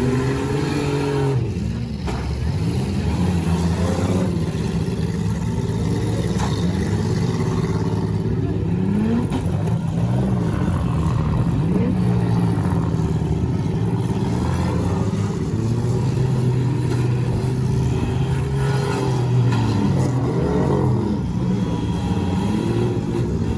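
Several demolition derby cars' engines revving at once, their pitches rising and falling as the cars drive in the arena.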